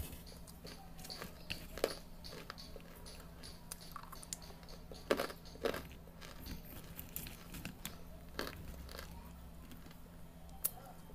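A person biting and chewing hard, dry pieces of baked red clay brick, with irregular crisp crunches, a few much sharper bites among them.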